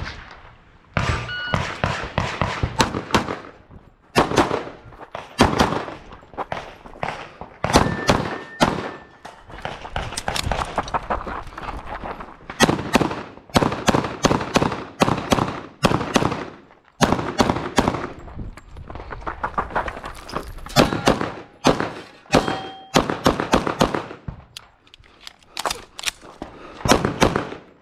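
Semi-automatic pistol fired in rapid strings of shots during a timed USPSA stage, the bursts broken by short pauses.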